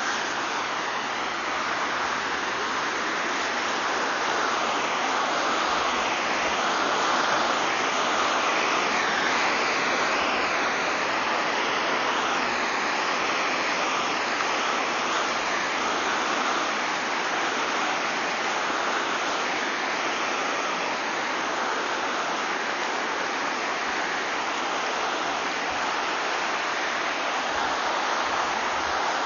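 Whitewater of a mountain river rushing steadily: an even roar of water with no breaks.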